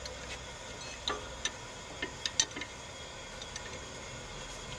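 A few sharp metallic clicks and taps as a pipe wrench's jaws grip and shift on a steel mounting bracket while it is levered wider. The loudest click comes about two and a half seconds in.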